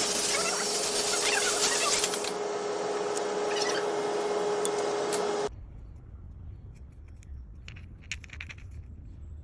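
A workshop machine running with a steady hum and hiss, then cutting off abruptly about five and a half seconds in, leaving a low rumble with a few light clicks.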